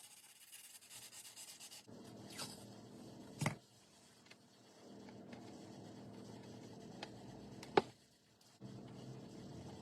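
Hand sanding a painted 3D-printed part with sandpaper: quick, even scratchy strokes for about two seconds, then duller rubbing. Two sharp knocks cut through, the second, near the end, the loudest.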